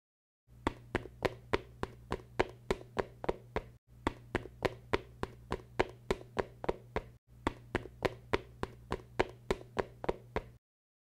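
Sound track of sharp, dry knocking clicks in a fast, uneven run of about three or four a second over a steady low hum. It breaks off briefly twice and stops shortly before the end.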